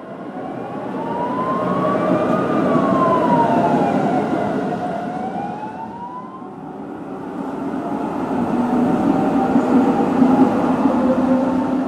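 A tram running past on the street, a rumble with steady low motor tones that swells to its loudest near the end. Before it, a tone rises, falls and rises again in pitch over about six seconds, like a siren wail.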